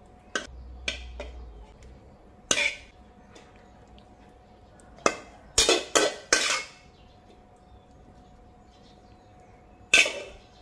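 Spatula scraping and knocking against a wok and a plate as stir-fried pork is scooped out: short clanks and scrapes, a quick run of them around the middle and one more near the end.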